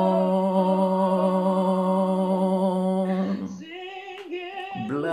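A voice singing a worship chorus, holding one long steady note on the word "come" for about three and a half seconds. It drops to a softer stretch, and the next sung line begins near the end.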